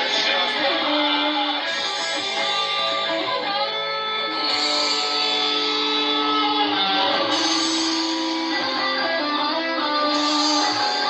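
Guitar music, with sustained notes, playing steadily throughout.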